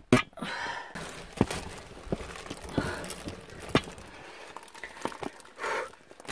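A person crawling through a narrow cave passage: clothing and gear rubbing and scraping, with scattered knocks. There is a breathy puff just after the start and another near the end.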